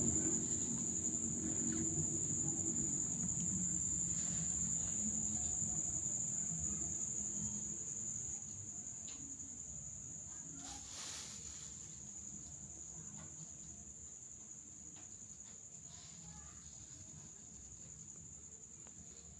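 Crickets trilling steadily at one high pitch, over a low rumble that slowly fades away.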